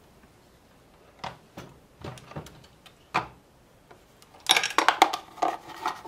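Metal reloading press being worked to move a dummy pistol cartridge to its final die station: a few separate clicks and knocks, then a quick cluster of metallic clicks and rattles near the end.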